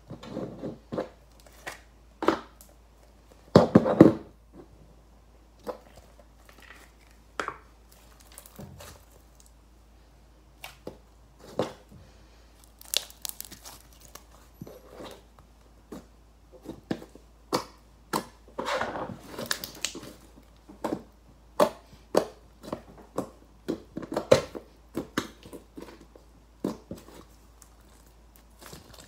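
Hands handling slime: plastic slime tubs are opened and set down, then the slime is stretched and squeezed. It gives irregular sharp clicks and pops, with a few longer crackling, crinkling stretches.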